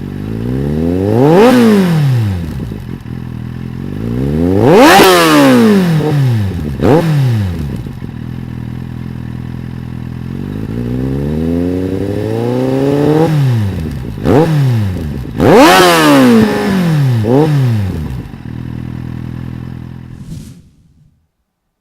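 A 2015 Kawasaki Z800's inline-four, through a GPR Furore exhaust with no dB killer, making several loud flybys. The engine note rises in pitch as the bike approaches, then drops as it passes, with revving between passes. It cuts off shortly before the end.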